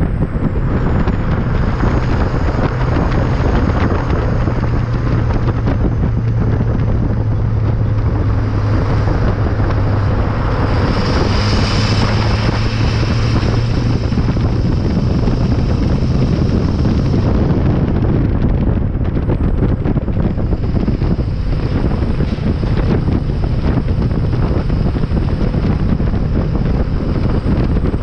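Exhaust of an LLY Duramax 6.6-litre V8 turbo-diesel pickup while driving, heard right at the tailpipe, mixed with heavy wind and road rush on the microphone. The low engine drone swells for several seconds in the middle, with a faint high whine at its peak.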